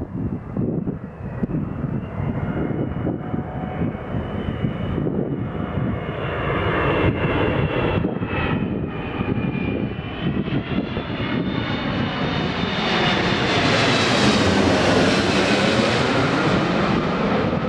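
Boeing 777-200ER twin jet engines at approach power as the airliner comes in to land, a high whine over a steady roar that grows louder as it closes in and passes low overhead near the end, the tone sweeping as it goes by. Wind rumbles on the microphone underneath in the first seconds.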